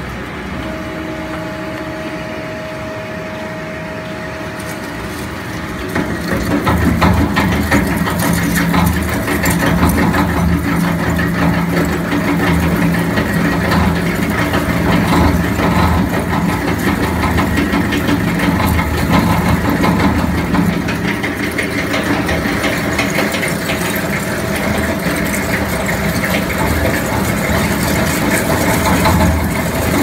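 Scrap shredder running on waste air-conditioner radiators. It starts as a steady machine hum with a thin held tone. About six seconds in it takes on load and gets louder, with dense crackling and rattling of metal scrap being torn up over a low steady drone.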